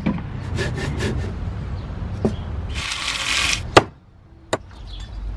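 Kitchen prep sounds: a knife scraping the peel off cassava roots, with a harsher stretch of rasping about three seconds in. Two sharp knocks follow near the end, the later one a cleaver chopping raw chicken on a wooden block.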